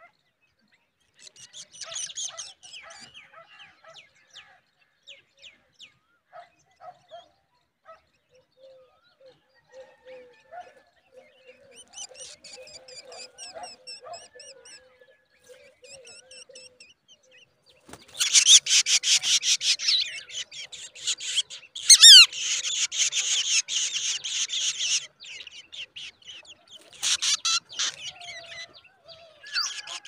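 Black drongo nestlings begging for food with bursts of rapid, harsh, high-pitched chattering calls. The loudest run lasts several seconds about two-thirds of the way through, with fainter chirps in between.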